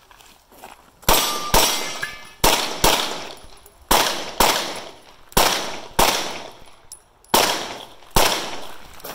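Handgun fired in a USPSA stage run: ten shots in five quick pairs, each pair a bit under half a second apart. Each shot trails off in a short echo.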